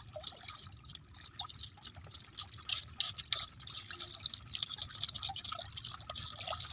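Knife scraping the scales off a fish in quick, short, raspy strokes. Small waves lap and trickle over the rocks at the water's edge.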